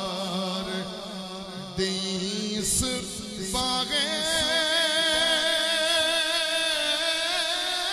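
A man singing a naat, holding long, wavering sung notes over a steady low drone.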